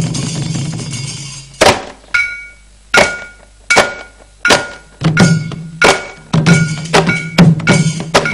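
Traditional percussion music. A sustained roll dies away in the first second, then sharp ringing strikes follow, first about every three-quarters of a second and gradually speeding up. A low steady drone joins in about halfway through.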